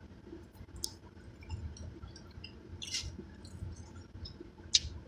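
Close-up chewing of food with a few sharp wet mouth smacks, the loudest near the end.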